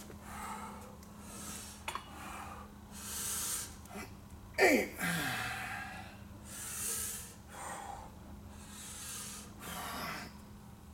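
A man breathing hard through a set of barbell deadlifts, a heavy breath every second or two. About halfway through comes a loud, short vocal exhale on the lift.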